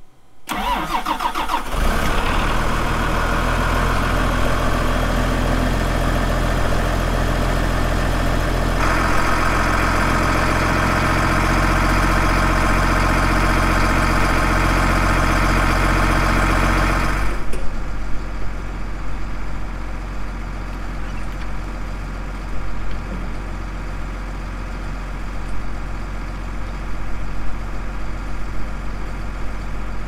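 Case IH tractor's diesel engine cranked by the starter and catching about two seconds in, then running steadily at idle. About 17 seconds in the sound drops suddenly to a quieter engine running.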